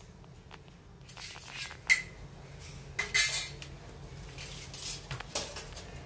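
A few scattered sharp clinks and knocks of hard objects being handled. The loudest, about two seconds in, has a brief ring; a cluster follows around three seconds and another near the end.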